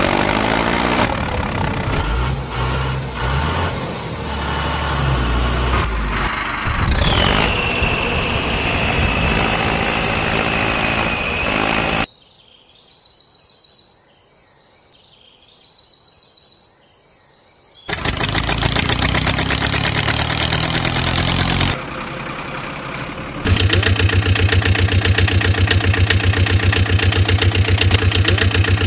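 Vehicle engine sound effects: an engine running and revving, then a steady high whistle-like tone, a quieter stretch of bird chirps, and finally an engine running with a low hum and a fast, even beat.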